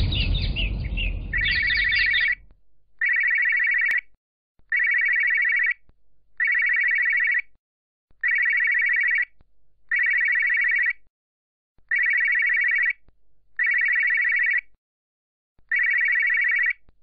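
Telephone ringing: an electronic ring repeated nine times, each ring about a second long with a shorter pause between. Before the first ring, the tail of a loud noise fades away.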